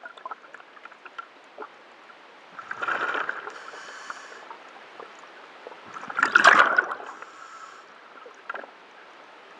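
Scuba diver's regulator breathing underwater: two loud gurgling bursts of exhaled bubbles, about 3 s and 6.5 s in, with a fainter hiss between breaths.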